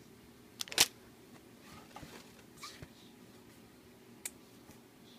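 Handling noise from packaged craft supplies being taken out of a box: a couple of sharp clicks a little under a second in, soft crinkles of packaging, and another click a little past four seconds.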